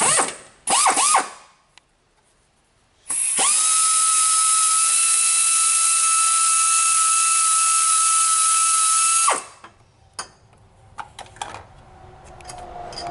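Power ratchet spinning out the last bolt that holds the truck engine's fan hub. It gives two short bursts at the start, then runs with a steady high whine for about six seconds and stops suddenly, followed by a few small metal clicks.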